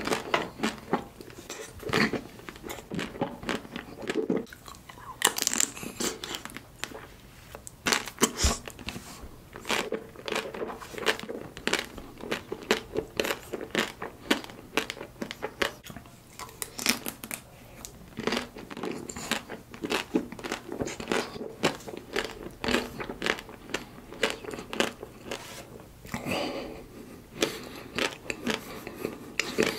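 Close-miked biting and chewing of chocolate-coated Magnum Mini ice cream bars: the hard chocolate shell cracks in many sharp crunches, and chewing goes on in between.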